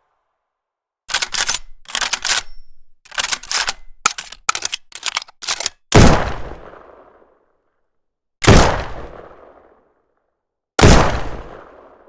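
Gunshot sound effects: several short bursts of rapid automatic fire, then three single loud shots about two and a half seconds apart, each trailing off in a long echo.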